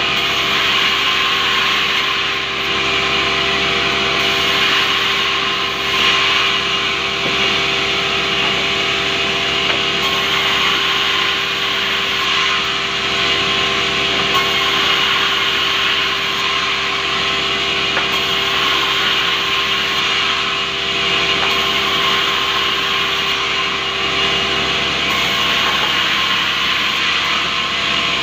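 Sawmill band saw running steadily and cutting rubberwood planks as they are fed through the blade, a continuous rasping saw noise.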